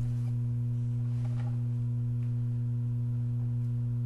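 Steady electrical mains hum: one low unchanging tone with a weaker tone above it, holding at the same level throughout.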